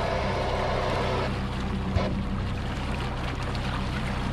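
Outboard motor running steadily at trolling speed, with a higher hiss over it that stops about a second in and a single knock about two seconds in.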